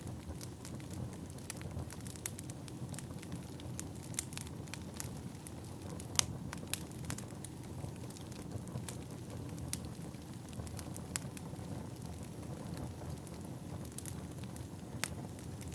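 Wood fire burning: a steady low rumble of flames with irregular sharp crackles and pops from the firewood, a few louder pops about six seconds in and near the end.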